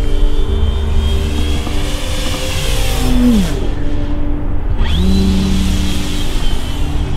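Electric motor and propeller of an RC aerobatic airplane in flight, a steady whine. About three seconds in the pitch falls away as the throttle is cut. A second and a half later it rises sharply as power comes back on.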